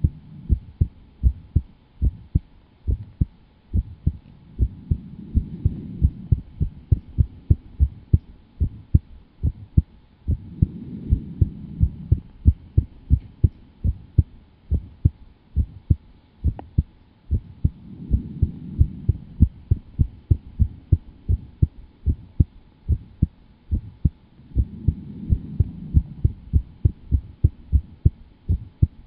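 Rapid, even low thumping, a little over two beats a second, with a low whooshing swell that rises and fades about every seven seconds.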